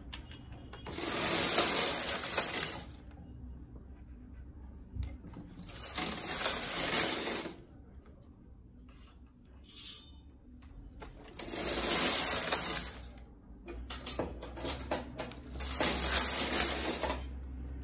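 Knitting machine carriage slid four times back and forth across the metal needle bed, each pass a clattering metallic rattle of about two seconds that knits one row, with a few faint clicks of needles being pushed by hand in the pauses.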